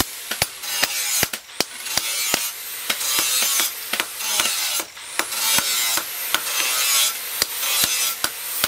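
Hand hammer striking a red-hot steel knife blade on a steel post anvil, sharp blows coming every half second or so at an uneven pace, over a steady high hiss.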